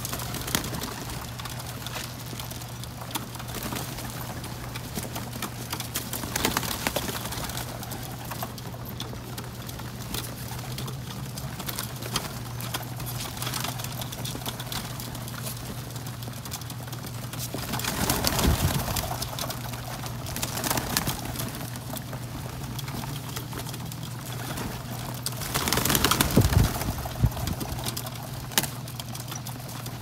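A flock of feral rock pigeons cooing and jostling as they feed, with louder bursts of wing flapping twice, past the middle and near the end. A steady low hum runs underneath.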